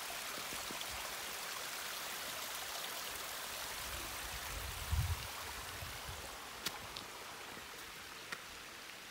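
Small woodland stream trickling over rocks, a steady rushing that fades over the last few seconds. A brief low thump comes about five seconds in, and a few sharp clicks near the end.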